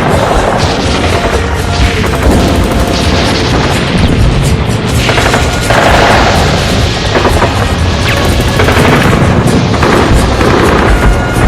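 War sound effects: booming explosions and bursts of machine-gun fire, dense and loud, layered over the music of the song.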